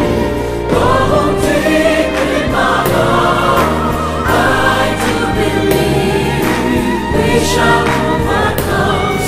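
A song with a group of voices singing together over instrumental backing music with a beat.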